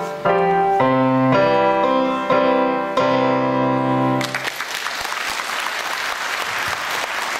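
Digital piano playing the closing chords of a piece, the last chord held for about a second. Audience applause breaks out just after four seconds in.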